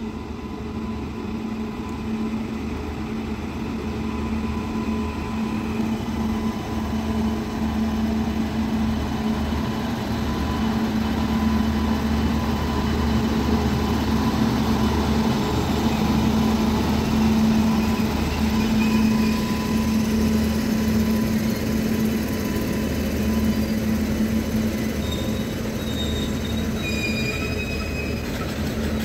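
Indian Railways WAG-9 three-phase electric freight locomotive passing close at speed, then its loaded freight wagons rolling by over the rails. A steady rumble carries a low hum throughout, loudest in the middle, with a few brief high wheel squeaks near the end.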